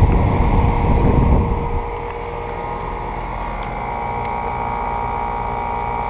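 2010 Carrier Performance Series 3-ton central air conditioner condensing unit running, a steady hum from its compressor and condenser fan. For the first two seconds a louder low rumble of the fan's upward discharge air blows over the microphone held above the grille.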